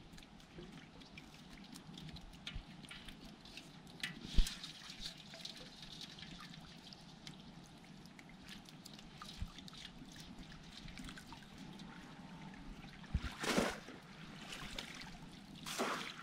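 Water trickling and dripping in shallow floodwater as a bamboo fish trap is handled, with a sharp knock about four seconds in and two short splashes near the end.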